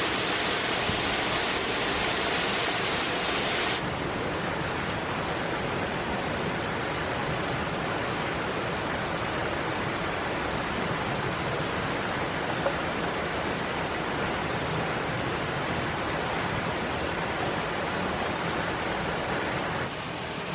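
Steady rush of falling water from a mountain stream's waterfalls. The high hiss drops away suddenly about four seconds in, and the rush carries on a little softer.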